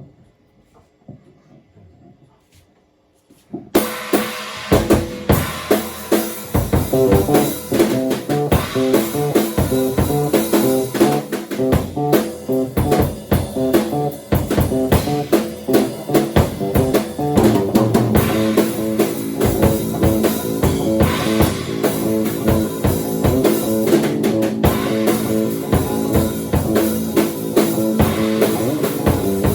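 Bass and drum kit improvising together, starting abruptly a little under four seconds in after a quiet start, with dense drum hits under a repeating bass line.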